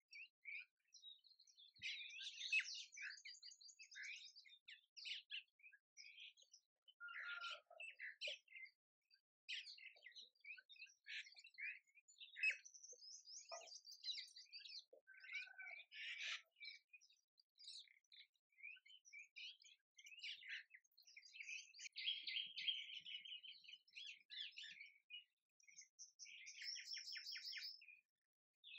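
Faint chorus of small birds chirping and twittering among the water coconut palms, a busy mix of short high calls with a quick trill near the end.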